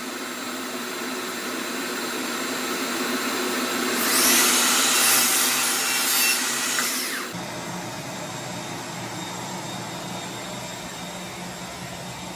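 Electric power saw running steadily, then cutting through wood with a loud rasp from about four to seven seconds in. After the cut the saw's pitch drops away and a lower steady hum remains.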